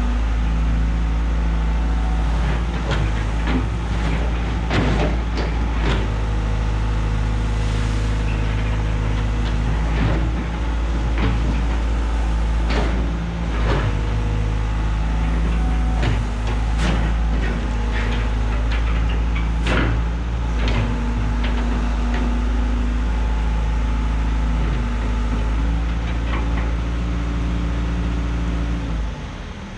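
A John Deere 190 excavator's diesel engine running steadily, its note stepping up and down as the hydraulics take and release load. Repeated short clanks and scrapes from the machine working the stone run through it, and the engine drops off just before the end.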